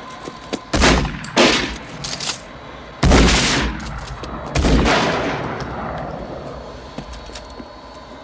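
A handful of handgun shots: two sharp shots about a second in, a couple of fainter ones, then two louder shots around three and four and a half seconds in. Each has a long echoing tail, and the last dies away over a couple of seconds.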